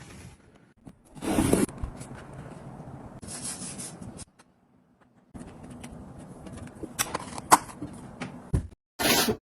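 Scraping and rustling handling noises, with a louder stretch about a second in and two sharp clicks about seven seconds in.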